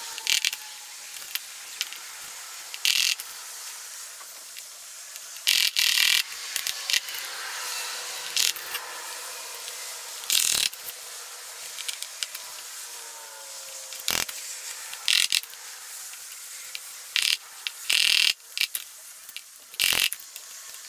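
Small metal clips being pushed and worked onto the edge of a car door panel by hand and with tools: irregular clicks and short metallic scrapes, with a few sharper knocks.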